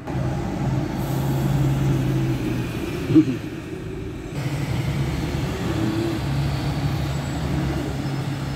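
Steady low engine rumble, like a motor vehicle running nearby, with a short thump about three seconds in.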